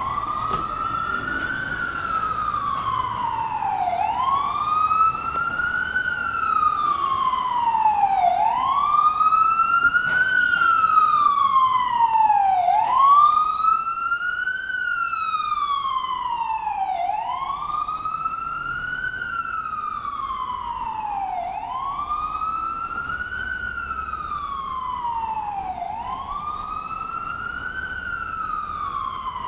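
Ambulance siren on a slow wail: the pitch sweeps up in about a second and a half, then slides back down more slowly, repeating about every four seconds.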